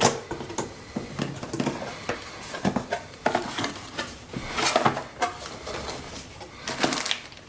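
A camera's retail box being opened and its packaging and accessories handled: irregular light clicks, taps and rustles.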